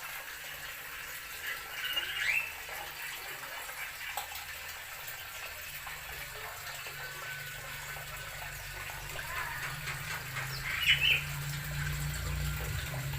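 A steady hiss of running water, with a short, loud bird chirp about two seconds in and another near the end.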